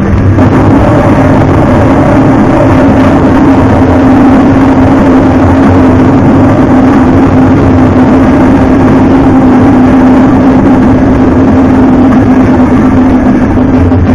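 Timberwolf Grand slot machine's bonus wheel spin sound effect: a loud, steady whirring drone over a constant low hum.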